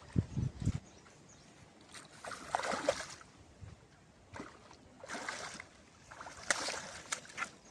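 Water splashing and sloshing in three short bursts, with a few low thumps just at the start.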